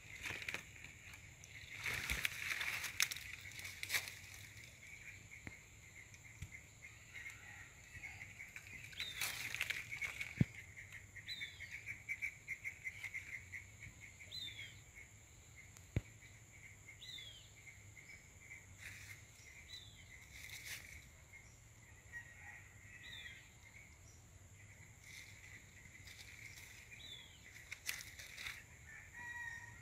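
Outdoor plantation ambience: a steady high chirring, with a short falling bird note repeated every two to three seconds from about nine seconds in. A few scattered clicks and rustles come from handling among the leaves.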